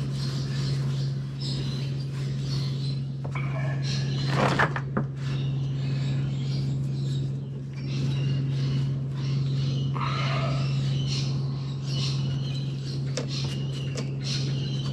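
Steady low hum with birds chirping in the background, and a single sharp knock about four and a half seconds in.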